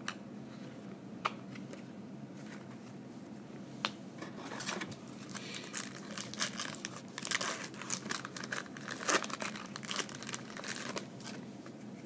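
Plastic wrapper of a trading-card pack crinkling as it is torn open and handled: a few single clicks, then a long stretch of dense crackling from about four seconds in until near the end.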